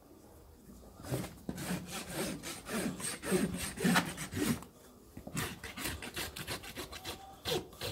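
Farrier's hoof rasp filing a Friesian horse's hoof: rhythmic scraping strokes, about three a second, starting about a second in, with a short pause near the middle.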